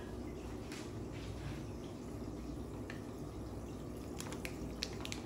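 Aquarium water bubbling and dripping over a steady low hum, with a cluster of small clicks and drips about four to five seconds in.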